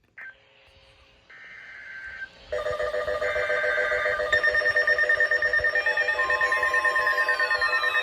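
Emergency Alert System tornado-warning alert sounds: short screechy data bursts, then a stack of steady and fast-pulsing alarm tones that grows louder about two and a half seconds in. Falling siren-like sweeps join near the end.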